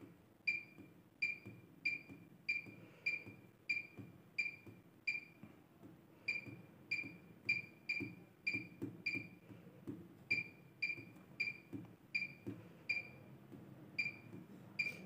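Bosch washing machine control panel beeping once for each press of the delay-start button as the delay time steps up hour by hour: short high beeps about two a second, with two brief pauses.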